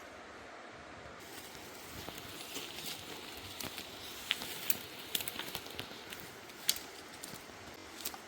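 Rustling with irregular sharp clicks and crackles, starting about two seconds in and thickest in the second half.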